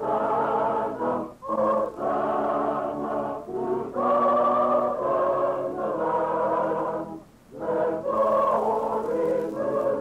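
A church choir singing a hymn in sustained phrases, with brief breaks between phrases and a longer one about seven seconds in. It is an old recording with a dull, narrow sound.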